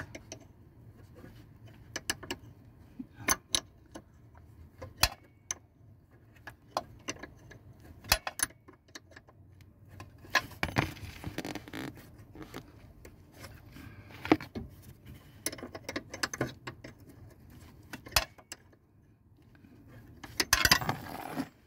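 Steel 12 mm combination wrench clinking and clicking against the nut on a truck's clutch pedal push rod as it is turned and repositioned. The clicks come at irregular intervals, with a couple of short scraping stretches around the middle and near the end.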